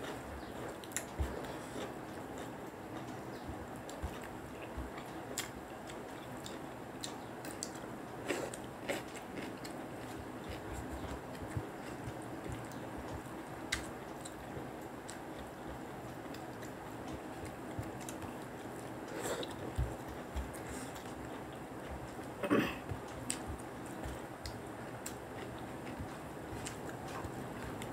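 Two people eating rice and curry with their fingers: chewing and mouth sounds, with scattered short clicks of hands and food against the plates and a few louder smacks, the loudest about 23 seconds in, over a steady background hum.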